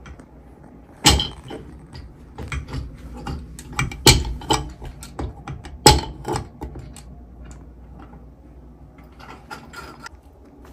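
Clicks and clunks of a sink's pop-up drain stopper and pivot rod being fitted and worked, with three sharper knocks about one, four and six seconds in, then scattered lighter clicks.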